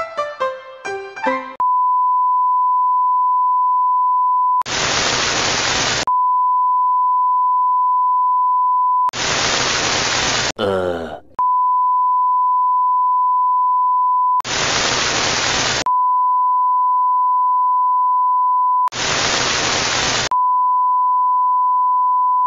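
Electronically generated signal: a short jingle of notes, then a steady high beep tone that keeps alternating with bursts of hiss about a second and a half long, four times, with a brief sweeping electronic warble about ten and a half seconds in.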